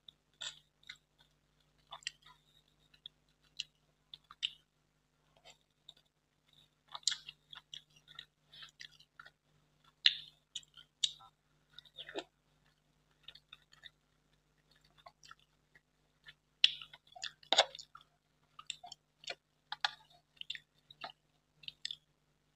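Close-miked mouth sounds of someone eating soft, milk-soaked rasmalai: wet chewing and lip smacks heard as scattered short clicks with brief quiet gaps.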